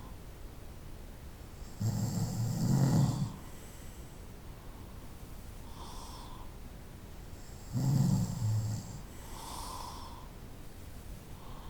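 A person snoring in sleep: two loud, rough snores about six seconds apart, with softer breaths between them.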